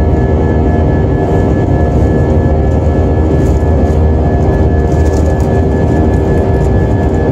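Airliner's jet engine and airflow noise heard from inside the passenger cabin: a loud, steady low rumble with a thin steady whine above it.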